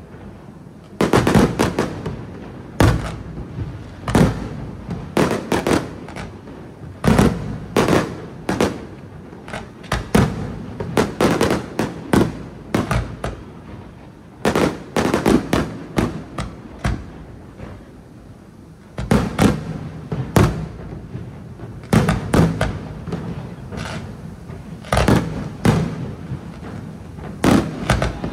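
Aerial firework shells bursting one after another: sharp booms at an irregular pace, sometimes several in quick succession, with a short lull about two-thirds of the way through.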